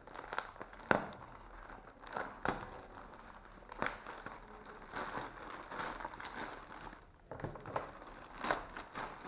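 Packaging being handled and opened: irregular crinkling and crackling, with a few sharp snaps.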